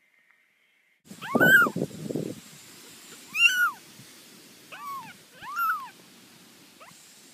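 A cat meowing four times, each meow rising and then falling in pitch; the first meow is the loudest.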